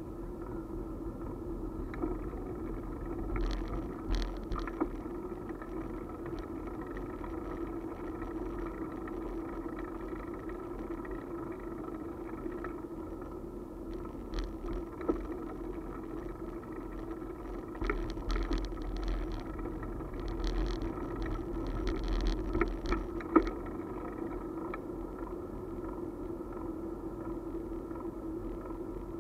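Mounted camera on a two-wheeler rolling over pavement: a steady hum and low wind rumble, with scattered clicks and rattles that grow busier for a few seconds in the second half.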